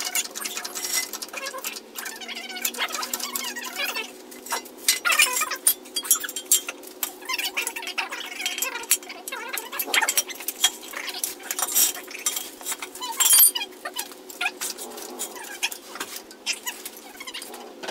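Irregular metallic clicks and clinks from a car jack and ratcheting jack stand as a vehicle is raised, over a steady low hum.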